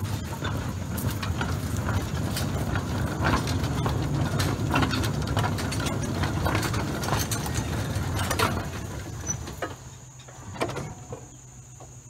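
A small 2-foot-gauge electric steeple cab locomotive and gondola car rolling along the track: a low rumble with wheels clicking and clacking over rail joints. It slows and stops about ten seconds in, with a couple of last clanks.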